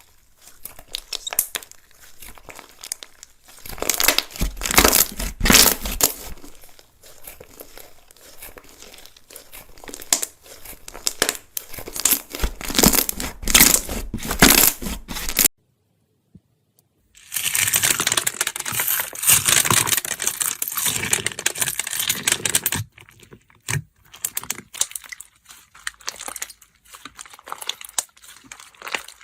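Slime being squeezed, poked and stretched by hand, giving crackling and popping clicks in clusters. A break of silence about halfway through is followed by about five seconds of denser crackling, then sparser clicks.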